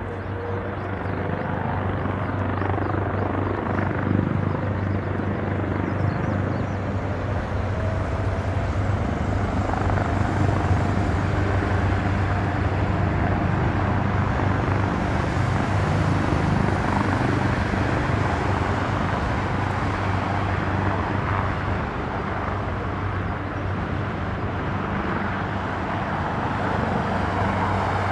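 Boeing 777 airliners' jet engines running at taxi power close by: a steady low rumble with a faint whine.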